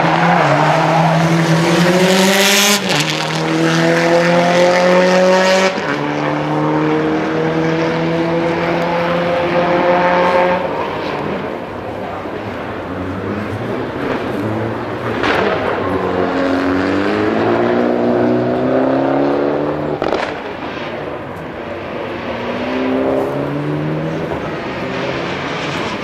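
Rally car engine at full throttle, its pitch climbing and then dropping at each upshift three times in the first ten seconds. After a quieter stretch it falls and climbs again as the car slows and accelerates once more.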